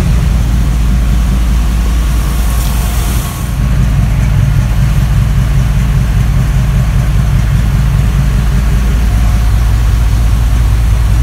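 V8 engine of a rat rod pickup idling steadily, a loud, even low rumble.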